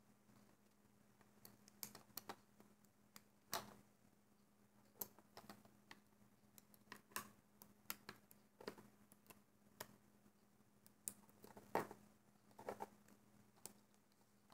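Faint, irregular light clicks and taps of a plastic hook working rubber bands on a plastic Alpha Loom, over a faint steady hum.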